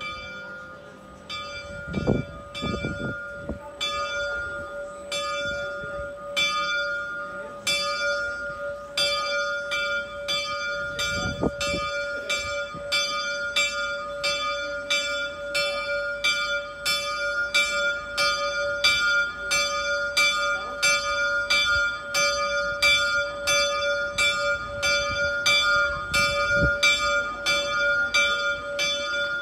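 Bell of the Slovak astronomical clock (orloj) ringing during its hourly procession of saint figures. It is struck over and over, unevenly at first, then steadily about twice a second, with a ringing hum that lingers between strokes. There are a few low thumps.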